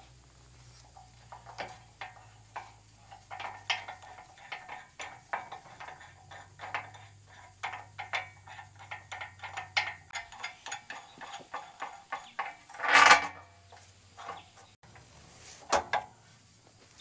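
Irregular light clinks and taps of steel parts as a portable bandsaw mill's track sections and fittings are handled and fastened together. A short, louder noise about thirteen seconds in.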